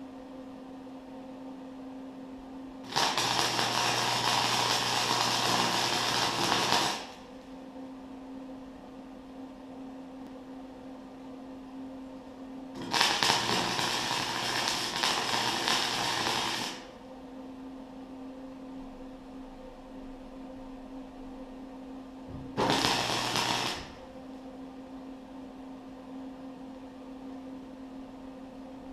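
Electric arc welding on steel: three bursts of crackling arc, about four seconds, four seconds and a second and a half long. A steady hum runs between the bursts.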